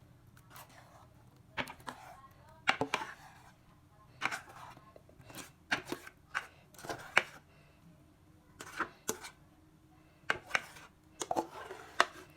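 Irregular sharp knocks and taps of kitchen utensils during food preparation, about fifteen over the stretch, some coming in quick pairs.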